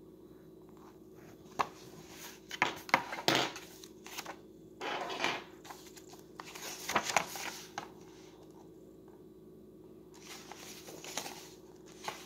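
A picture book being handled and its pages turned: a few knocks and taps on the book, then short rustling swishes of paper as pages flip, several times.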